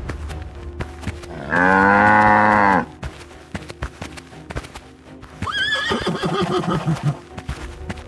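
A cartoon sound effect of a cow giving one long moo about a second and a half in, then a horse whinnying from about five and a half seconds in, its call rising sharply, wavering and sliding down. Background music plays underneath.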